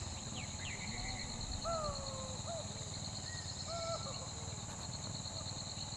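Forest ambience: insects buzzing in a steady, high, pulsing drone, with several short whistled bird calls over a low rumble.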